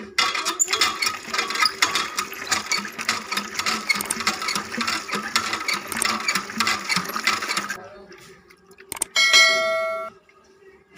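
Water gushing from a pipe into a plastic tub of cracked wheat and splashing for about eight seconds, then stopping. About nine seconds in comes a click and a short bell chime.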